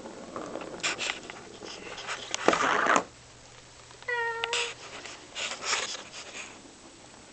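House cat giving one short meow about four seconds in. A loud burst of rustling noise comes just before it, with a few fainter scuffs and rustles around it.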